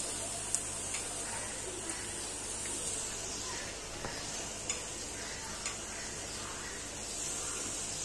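Batter-coated potato fritters (aloo pakode) deep-frying in hot oil in a pan: a steady sizzling hiss with a few sharp crackles.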